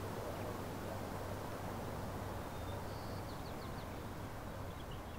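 Steady outdoor ambience with a low hum and rumble, and a few faint, quick, high bird chirps about three seconds in.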